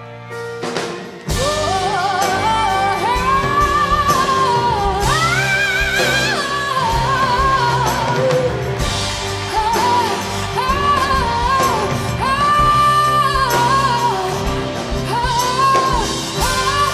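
Quiet keyboard chords give way about a second in to a full rock band and orchestra with drums. Over it a mezzo-soprano sings a wordless melody, sweeping up and down in pitch and holding long high notes.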